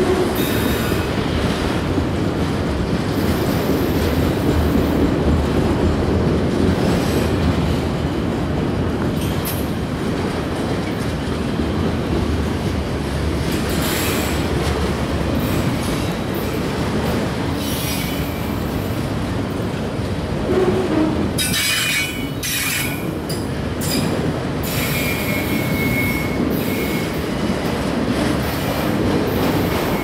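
Autorack freight cars rolling past on steel wheels: a steady heavy rumble with scattered high wheel squeals and screeches, including a held high squeal for a couple of seconds in the second half.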